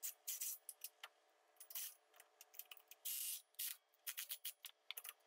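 Faint scattered clicks and short scraping rasps of a Milwaukee M12 Fuel cordless driver and its socket on receiver-hitch bolts, run down only to take the slack out, not tightened. A slightly longer rasp comes about three seconds in.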